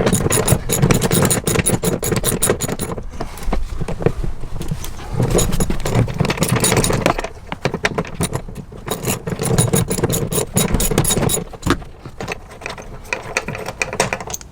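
Ratchet wrench with a 14 mm socket clicking rapidly in several bursts as a bolt is turned out of the Land Cruiser's body, with metal handling rattles between; the clicking thins out near the end.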